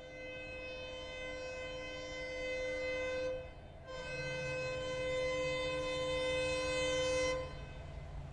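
EMD WDP4D diesel locomotive's horn sounding two long, steady blasts, with a short break about three seconds in. Underneath is the low rumble of the approaching train, which grows louder with the second blast.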